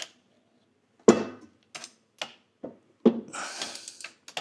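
Metal hand tools knocking and clinking on the engine and gearbox while the flex-plate-to-torque-converter bolts are worked on: one sharp knock about a second in, a few lighter clicks after it, and a short scraping rustle near the end.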